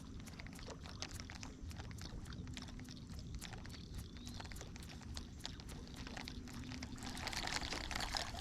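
A topwater lure being retrieved across a pond: a run of irregular small clicks and ticks as the lure is worked and the reel turned, with a patch of louder splashy water noise near the end.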